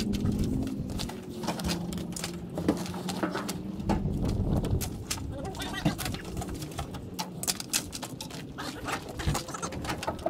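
Knocks, clatter and rustling of fishing gear (bags, rods, a crab pot) being lifted out of a van and handled, with low wavering tones in the first half.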